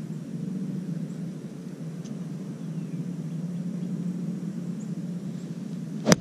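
A steady low background hum, then near the end a single sharp crack as a golf club strikes the ball.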